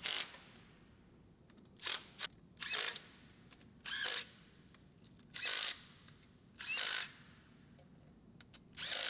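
Cordless power tool spinning in about six short bursts, each under half a second, as it runs exhaust manifold bolts into the cylinder head.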